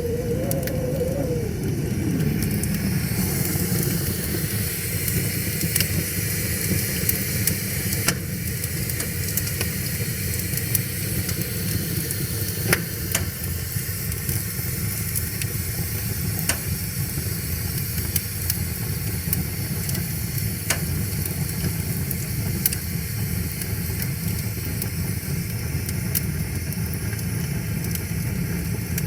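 Wood fire crackling with scattered sharp pops over a steady low rush of flowing river water. In the first two seconds a wavering tone slides down and fades out.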